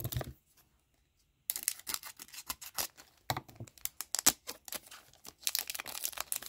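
Trading-card pack wrapper crinkling as it is cut open with scissors and handled. After a short pause, from about a second and a half in, there is a dense run of crinkles and small sharp clicks.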